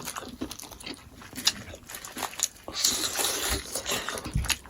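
Close-miked eating sounds: chewing smoked pork, with many small mouth clicks and smacks, and a longer noisy stretch of chewing or slurping in the second half.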